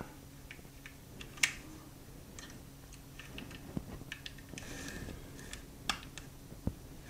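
Light, scattered clicks and taps of small steel parts as a Glock 20 Gen4 slide lock is worked into the frame against its spring. A sharper click comes about a second and a half in, and a few more near the end.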